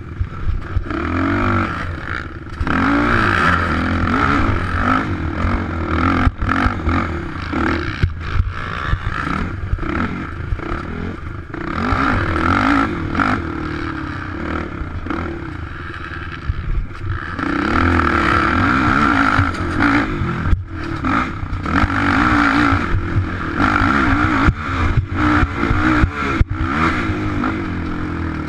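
Sport quad's single-cylinder engine revving hard while racing over dirt, its pitch climbing and dropping over and over with throttle and gear changes. Knocks and rattles from the chassis come through over the rough ground.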